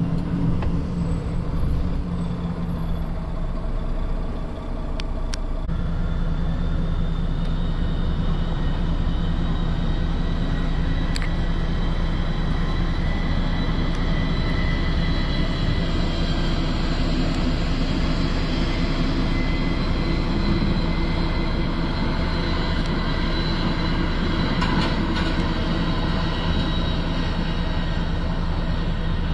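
Vehicle engine running steadily, a low hum heard from inside the cab. From about six seconds in, a faint high whine that drifts slowly in pitch sits over it.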